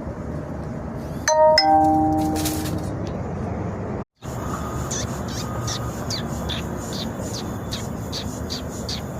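Two ringing, chime-like tones in quick succession, fading over a second or so, over a steady hiss. After a brief cut, a run of short high chirps follows.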